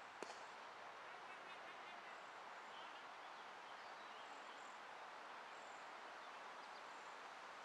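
Faint outdoor ambience: a steady hiss with a few faint high bird chirps. Just after the start comes a single sharp knock, a hard cricket ball struck by the bat.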